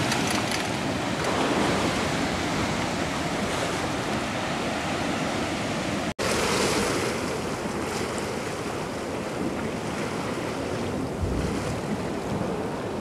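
Ocean surf washing against rocks, mixed with wind buffeting the microphone: a steady noisy rush that cuts out for an instant about six seconds in.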